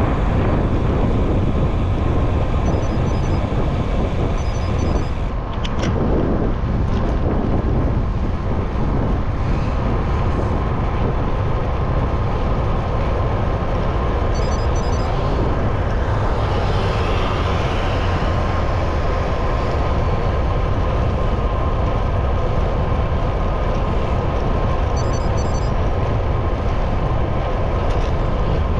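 City street traffic mixed with wind rushing over the microphone of a moving bicycle: a steady, even noise with no single event standing out.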